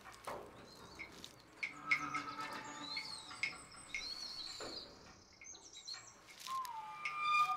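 Jungle ambience: assorted bird chirps and whistled calls over a bed of insect noise. A lower, falling whistle comes about six and a half seconds in.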